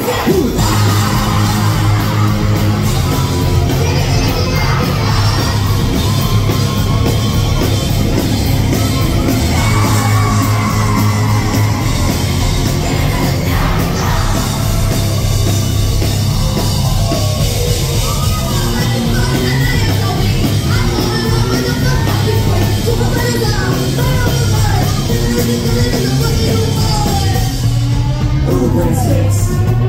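Live rock band playing loud: electric guitar, bass guitar and drums, with a woman singing and yelling into the microphone.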